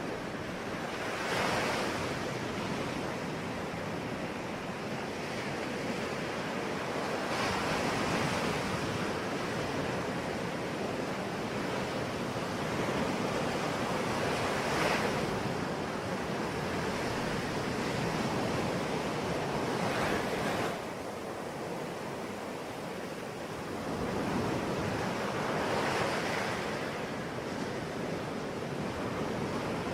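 Sea waves breaking on a shore: a steady surf wash that swells up with a new wave roughly every six seconds, one of the swells ending abruptly about two-thirds of the way through.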